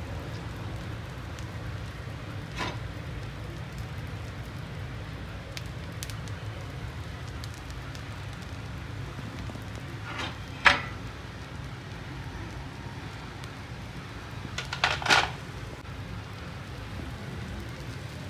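Paneer being grated with a handheld steel grater over a chilla on a hot tawa, with a light steady crackle of the chilla cooking underneath. A few sharp metallic knocks of the grater against the pan, the loudest about ten seconds in and a short cluster of them around fifteen seconds.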